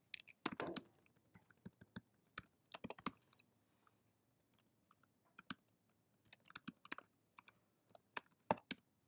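Computer keyboard typing: quick clusters of keystrokes with short pauses between them.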